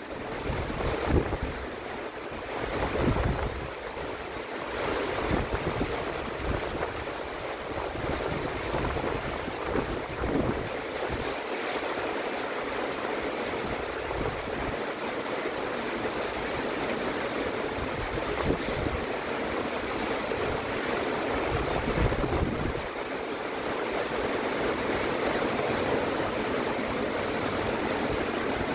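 Heavy rain falling steadily in a dense, even hiss. In the first few seconds low gusts of wind buffet the microphone.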